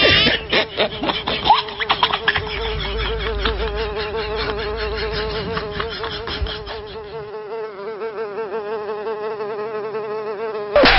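Insect buzzing, a steady wavering drone like a fly or mosquito, that stops just before speech resumes.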